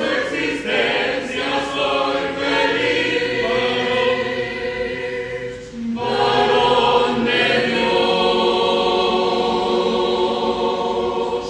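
Church choir singing long held chords, with a brief break about six seconds in before the voices come back in.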